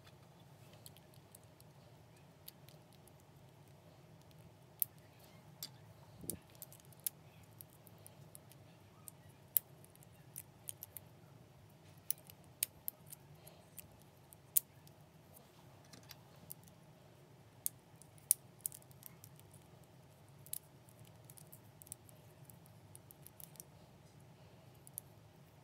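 Clear plastic 3D crystal puzzle pieces being handled and fitted together: small, sharp clicks and taps at irregular intervals over a faint steady low hum.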